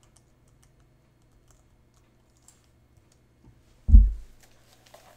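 Faint, scattered computer keyboard key taps, with one dull low thump about four seconds in.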